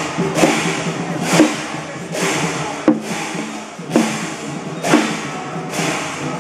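Chinese temple percussion: cymbals and gongs struck about once a second, each clash ringing on with a tone that slides down in pitch.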